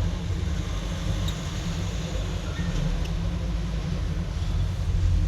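Steady low background rumble, with a few faint light clicks over it.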